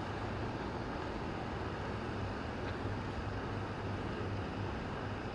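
Steady low rumble of background traffic noise, unchanging throughout.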